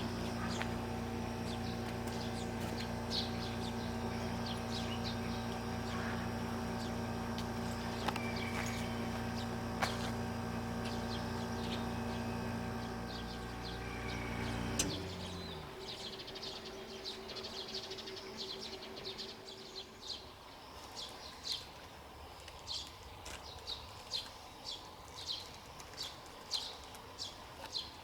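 A steady mechanical hum with an even low drone cuts off suddenly about halfway through. It is followed by a bird chirping over and over in short, high notes, about one or two a second.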